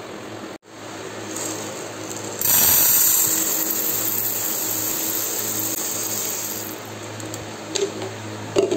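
Split yellow lentils poured into a stainless steel bowl: a steady rushing hiss of falling grains that starts about two and a half seconds in, loudest at first and easing off until it stops near seven seconds. A couple of light knocks follow near the end.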